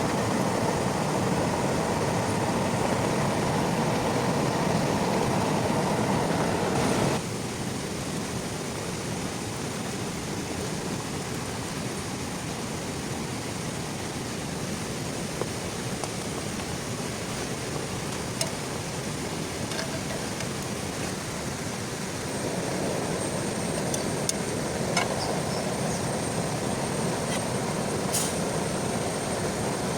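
Heavy rain falling, a steady hiss that abruptly drops quieter about seven seconds in and swells a little again past the twenty-second mark. Scattered sharp taps of drops are heard in the later part.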